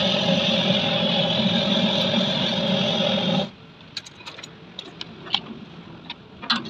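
A loud, steady engine-like machine drone that cuts off suddenly about three and a half seconds in. After it come a few light clicks and taps as the plastic lid of a lead-acid battery case is handled and pressed into place.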